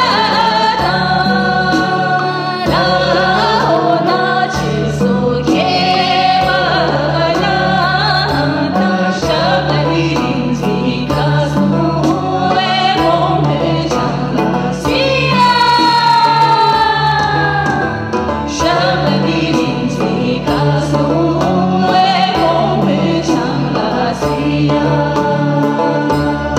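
A woman singing a song into a handheld microphone over instrumental backing, amplified through the venue's sound system. About halfway through, she holds one long note that glides downward.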